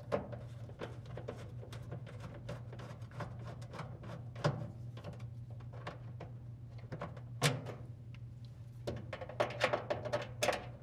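Phillips screwdriver turning screws out of an LG dryer's plastic lint-filter cover: many small clicks and scrapes, with a few louder plastic knocks, the last of them bunched near the end, over a steady low hum.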